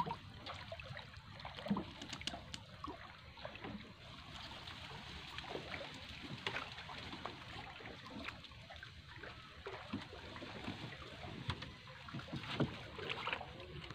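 Water splashing and dripping as a fishing net is hauled by hand out of a pond into a wooden boat, with scattered small knocks and clicks.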